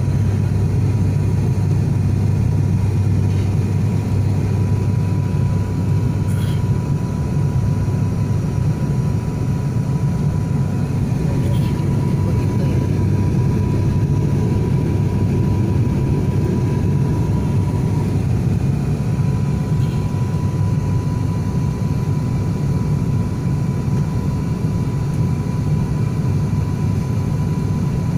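Turboprop airliner's engine and propeller drone heard from inside the passenger cabin during the descent to land: a steady, loud low hum with a thin, steady whine above it.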